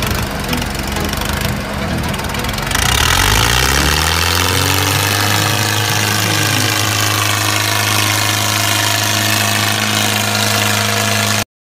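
Tractor engine sound, likely dubbed over toy tractor footage. About three seconds in it rises in pitch and settles into steady running, then cuts off abruptly near the end.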